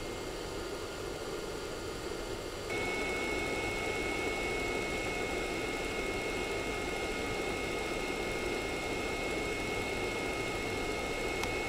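Steady machine hum and hiss, like fans running. About three seconds in it gets slightly louder and a faint high-pitched whine joins it.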